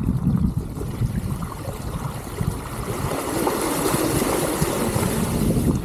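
Water splashing and rushing around the tyres of an electric mountain bike riding through a shallow river, over a low rumble, with the splashing hiss growing louder in the second half.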